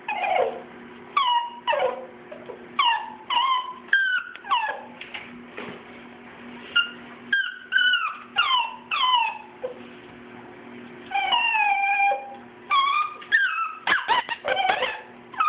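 Two-month-old schnauzer puppies whimpering and yipping over and over, a string of short high cries that each fall in pitch, a few held longer. The puppies are crying at being bathed.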